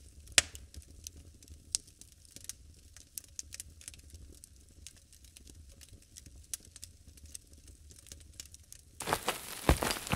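Scattered sharp clicks and crackles over a faint low hum, turning into a louder, dense crackling rustle about nine seconds in.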